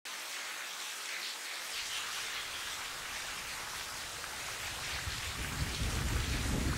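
Steady rain falling, with a low rumble of thunder building from about five seconds in.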